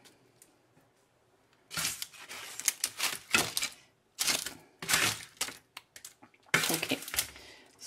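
Spatula scraping crispy smashed potatoes across baking paper on a baking tray: three bouts of crunching and paper rustling, starting about two seconds in.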